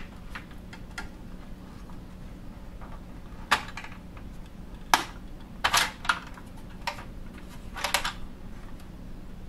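Plastic retaining clips of an AEG condenser dryer's control panel fascia being released by hand: a scattering of sharp plastic clicks and snaps, some in quick pairs, over a low steady hum.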